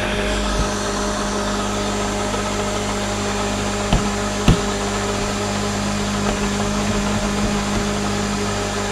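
Countertop blender motor running steadily, blending a thick green mixture in its jug, with two short knocks about four seconds in.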